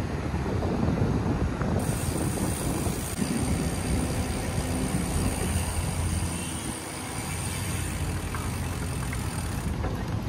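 Riding noise from a loaded touring bicycle on a paved cycle path, with wind rumbling on the microphone. A steady high hiss joins about two seconds in and stops near the end.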